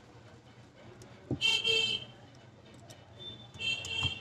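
Two short, loud, high-pitched horn toots, about two seconds apart, with a low knock just before the first.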